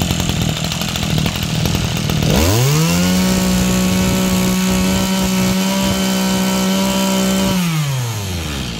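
Mitsubishi TL26 brush cutter's small two-stroke engine, idling, then opened to full throttle about two seconds in. It holds a high, steady rev for about five seconds, then winds back down toward idle near the end.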